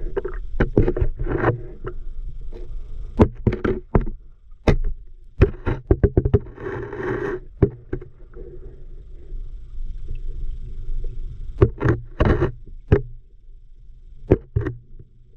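Underwater sound from a submerged camera: irregular sharp knocks and clicks over a steady low rumble of river water, with a short rush of noise about seven seconds in.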